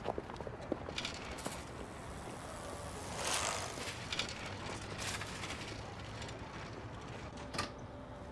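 Bicycle ridden past, with light mechanical clicking and a brief rushing swell about three seconds in.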